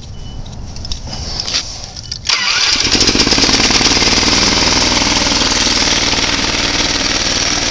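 A cold Briggs & Stratton 6 hp vertical-shaft engine is cranked by its electric starter with a low, pulsing rumble. It catches suddenly a little over two seconds in and settles into a loud, steady run.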